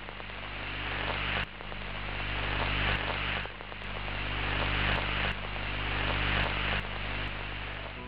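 Aircraft noise: a rushing of air over a steady low hum, swelling and then dropping off abruptly several times.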